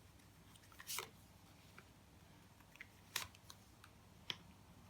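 Tarot cards being handled, giving three short taps and flicks about a second in, a little past three seconds and just past four seconds.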